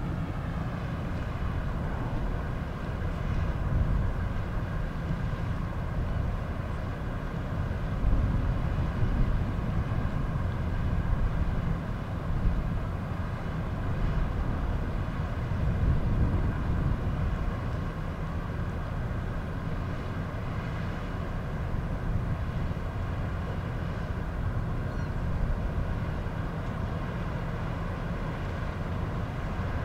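A ship's engine droning steadily across the water, under a low rumble that swells and eases in gusts.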